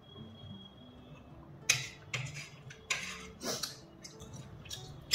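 Metal spoon and fork clinking against a glass bowl and a plate: about five sharp clinks, starting a little over a second and a half in, with a loud one at the very end. Soft background music runs underneath.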